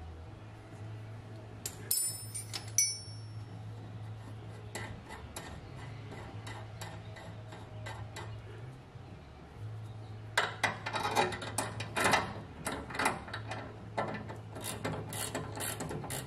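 Hand wrenches clicking and clinking on the threaded adjuster nut of a parking-brake cable while it is tightened to take up slack. There is one ringing metal clink about two seconds in, and a quick run of ratchet-like clicks from about ten seconds in, over a steady low hum.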